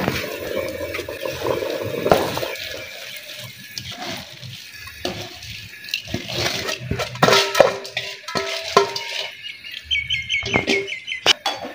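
Raw rice poured from a steel bowl into a large aluminium pot of boiling broth with vegetables: a splashing pour, then scattered metallic clinks of the bowl against the pot as the rest of the rice is spread in.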